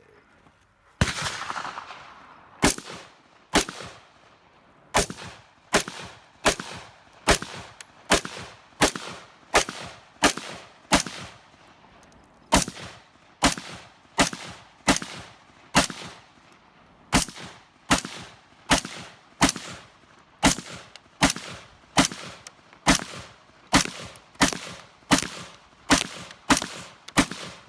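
Semi-automatic rifle fired in a long string of about thirty single shots at a steady, unhurried pace, with a few short pauses between groups. The first shot, about a second in, is the loudest, with a long echo.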